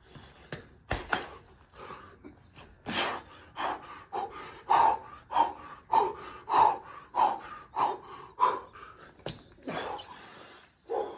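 A man breathing hard in loud, rhythmic pants during burpees, a little under two breaths a second, easing off near the end. A couple of sharp knocks come about a second in.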